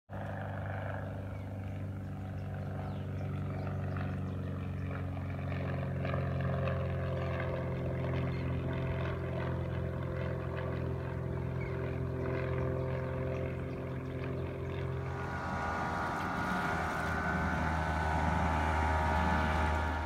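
An engine running steadily with a constant pitch, its sound shifting higher about fifteen seconds in.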